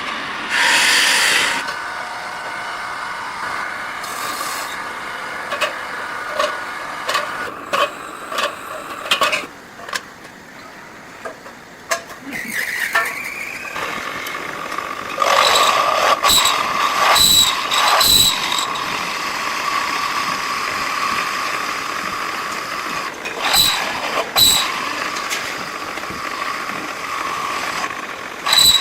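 Workshop machinery running with a steady whine, broken by many sharp metallic clicks and knocks.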